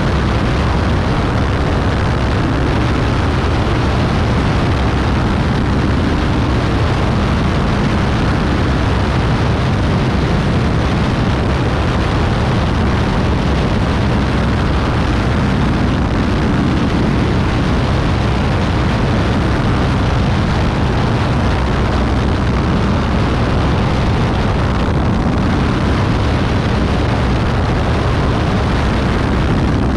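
Beechcraft Bonanza B35's six-cylinder Continental engine and propeller running steadily in flight, a loud continuous drone mixed with rushing air.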